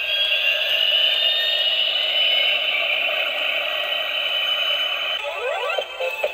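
Battery-operated toy airplane playing an electronic jet take-off sound through its small speaker: a steady, tinny hiss with a high whine. About five seconds in this gives way to a few quick rising electronic chirps, and the toy's tune begins.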